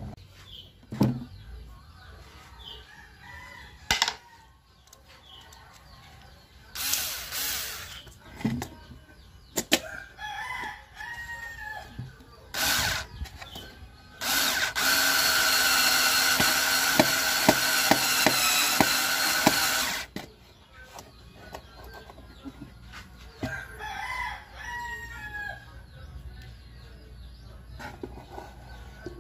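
Power drill running in short bursts, the longest lasting about six seconds midway. Chickens and a rooster call in the background.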